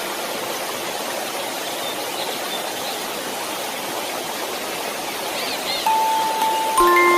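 Steady, even white noise hiss for baby sleep, with a few faint bird chirps over it. Soft held lullaby notes come in near the end.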